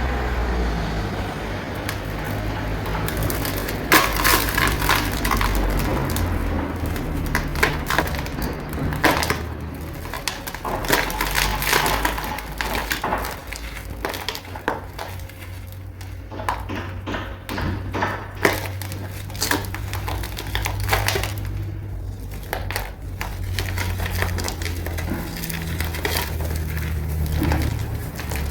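Dry cement chunks being crumbled and crushed, giving an irregular run of crunchy cracks and crackles, with the sharpest cracks about 4 s and 18 s in.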